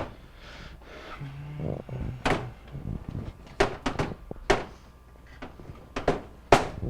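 A series of sharp knocks and clunks, about six, from the microwave and cabinet being handled during remounting, with a brief low hum about a second in.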